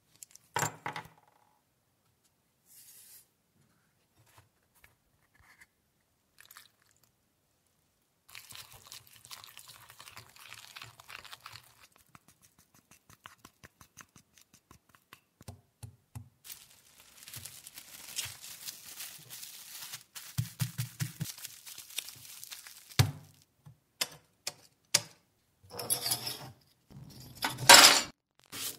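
Close handling noises: plastic film crinkling and crackling while a soft paste is worked on it, then several sharp clacks near the end as metal Meccano wheels are set down in a plastic parts-washer tray.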